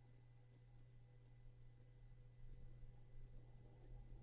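Near silence: faint, irregularly spaced computer mouse clicks over a low steady hum.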